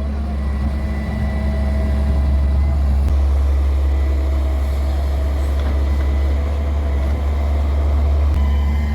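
Heavy diesel engine of earthmoving machinery running steadily with a deep, even drone. Its note shifts slightly about three seconds in and shifts back near the end.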